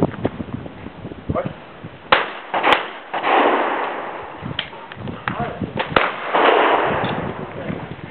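Shotgun shots on a clay-pigeon range: sharp reports about two seconds in and again about six seconds in, each trailing off over a second or so.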